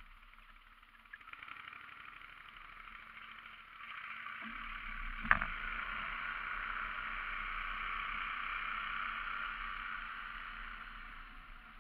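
Boat mud motor running steadily, growing louder from about four seconds in and easing off near the end, with one sharp knock about five seconds in.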